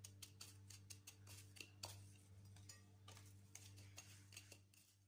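Faint gritty ticks and scratches of a thin apple ring being pressed and turned in cinnamon sugar on a plate, over a low steady hum.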